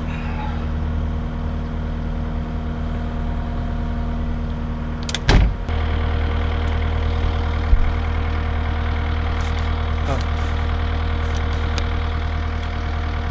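Engine of a tracked machine idling steadily, with a loud knock about five seconds in, after which the engine runs a little louder.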